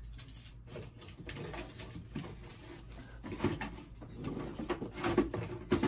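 Faint rummaging and handling noises, someone searching around for a lighter, with a sharp knock near the end.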